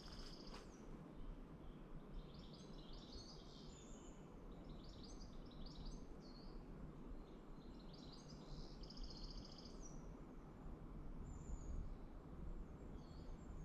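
Woodland birds singing: a run of short chirping phrases and rapid trills, one after another, over a faint steady low background noise.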